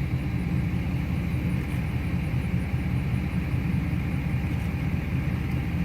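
Steady low engine rumble of a moving motor vehicle, even in level throughout.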